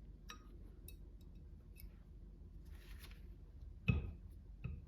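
Faint metallic clicks and light handling of the Ford FE rocker shaft assembly's parts, with a sharper metal clink about four seconds in and a smaller one near the end.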